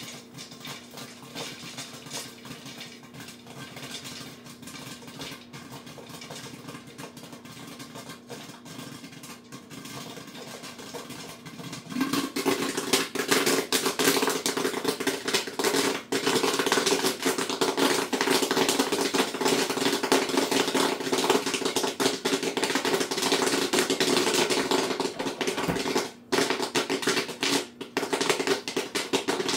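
Popcorn kernels popping rapidly in a pot on a gas stove, a dense run of irregular pops over a steady hum. About twelve seconds in the lid comes off and the popping becomes much louder and brighter.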